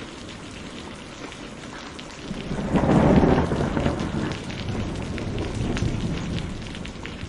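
Steady rain with scattered drops hitting a surface, and a roll of thunder that swells up about two seconds in, peaks loudly, then rumbles on for a few seconds and slowly dies away.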